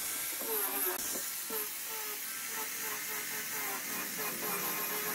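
Corded handheld disc sander running against wood: a steady hiss of the abrasive with a motor whine whose pitch wavers every half second or so as the disc is worked along the board.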